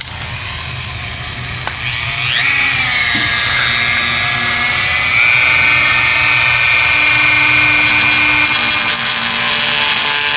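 Dremel rotary tool whining at high speed as it cuts into a plastic valance. Its pitch and loudness rise about two seconds in, then hold steady.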